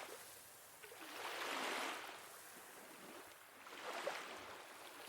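Ocean waves washing on a shore, soft surf swelling and fading, with one surge about a second in and another near four seconds.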